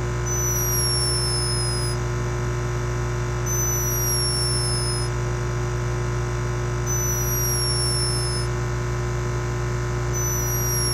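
A sleeping hummingbird snoring: a thin, very high whistle that slides slightly down in pitch for about a second and a half, four times, roughly every three and a half seconds. Under it runs a steady electrical hum from a camera microphone turned up to high sensitivity.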